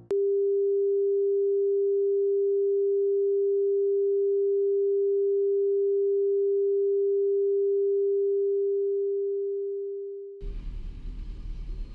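A single steady test tone, the kind played with television colour bars, held for about ten seconds and fading out. Then a rough hiss with a low hum.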